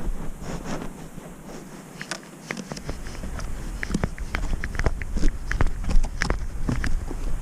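A cat's paws crunching in fresh snow, heard close up from a camera worn on the cat: irregular crisp crunches, a few at first and then several a second. A low rumble comes in about three seconds in.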